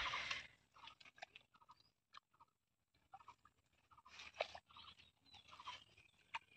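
Faint scattered crunching and scraping as fingers dig into damp soil at a mud hole and brush through grass, in short irregular crackles.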